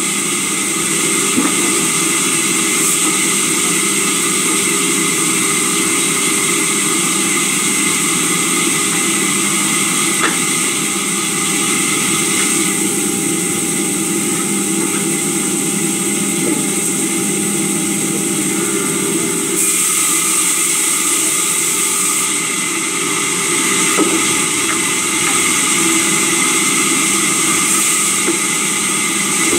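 Sawmill saw running steadily as timber is fed through it: a loud, even mechanical noise with a high steady whine, shifting slightly in tone a few times as the cut goes on.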